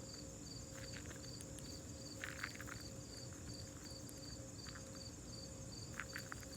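Faint insect chirping, like crickets: an even high chirp about three times a second over a steady high whine, with a few small clicks.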